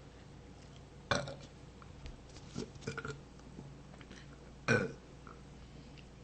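A woman burping loudly twice, about three and a half seconds apart, each burp short with a sudden start. A few fainter short sounds come between them.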